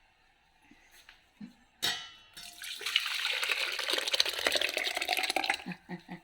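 Cooked lentils poured from the pressure cooker pot into another vessel: a metal clink about two seconds in, then about three seconds of wet, splashing pouring.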